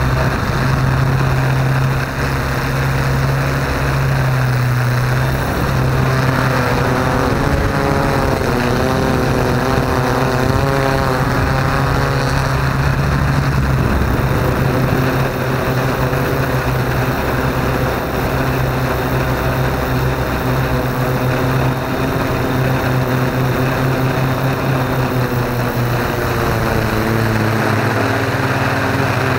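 Yuneec Q500 Typhoon quadcopter's electric motors and propellers buzzing steadily, heard close up from on board the drone. The pitch wavers up and down for several seconds around the middle and shifts again near the end as the motor speeds change.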